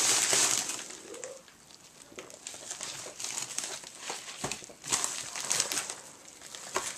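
Packaging crinkling and rustling as a shipping box is rummaged through. It is loudest in the first second, then goes on as quieter scattered crinkles, with a single knock about four and a half seconds in.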